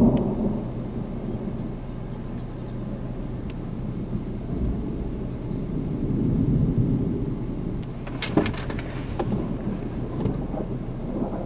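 Thunder rumbling low, fading from a loud clap that broke just before, then swelling again about six seconds in. A quick cluster of sharp clicks comes about eight seconds in.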